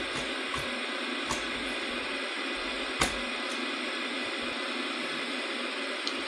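A steady, even hiss with a few light clicks and one sharper click about three seconds in.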